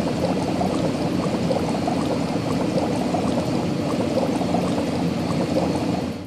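Steady bubbling, pouring water sound effect with a crackle of many small pops, cutting off near the end.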